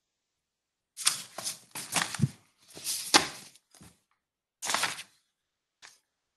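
Bursts of clattering and clicking in four or five groups, each cutting in and out abruptly, with dead silence between them.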